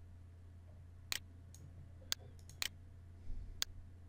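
Computer mouse buttons clicking, four separate short clicks spaced unevenly, as the pointer works a folder list's scroll bar. A steady low electrical hum runs underneath.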